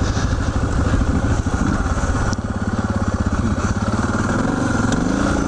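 Suzuki DR650's big single-cylinder four-stroke engine running, fitted with a Procycle carburettor jet kit; the engine eases off about two seconds in and then picks up a little.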